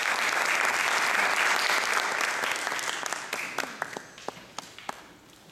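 Audience applauding; the clapping thins out about three seconds in and ends in a few scattered single claps.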